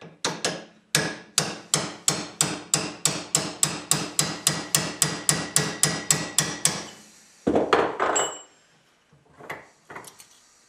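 Ball peen hammer striking a cold chisel, ground for sheet metal, to shear a thin aluminum sheet clamped in a bench vise: a steady run of sharp metallic blows, about three a second, for some six seconds. The blows stop and are followed by one louder clatter and a few faint handling sounds near the end.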